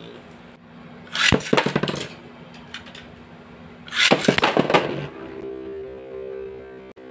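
Metal Fight Beyblade spinning tops whirring with a steady hum on the stadium floor, broken twice by loud clattering rattles, about a second in and again at about four seconds as a second top is launched in and skitters across the floor. After that the hum of the two tops gets stronger.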